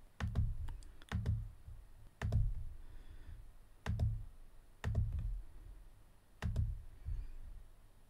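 About eight sharp computer clicks, each with a low thud, at uneven intervals, as the points of a polyline are placed one by one in CAD sketching software.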